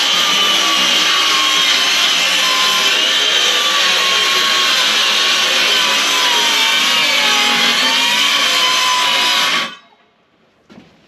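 Handheld circular saw cutting through plywood, its motor pitch wavering slightly under load. It stops suddenly near the end.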